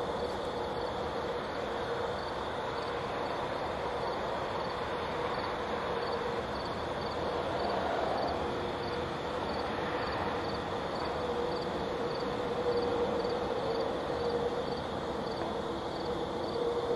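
Steady outdoor night background of hum and noise, with a cricket chirping faintly about every half second.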